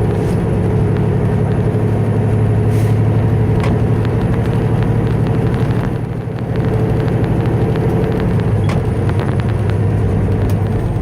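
Heavy air-braked truck's diesel engine running steadily at low road speed, heard from inside the cab. The engine note dips briefly about six seconds in, then picks up again.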